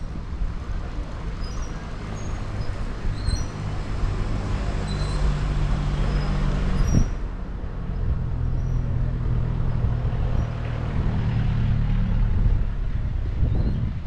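Car engine running at low revs close by, a steady low hum, with a single sharp click about halfway through.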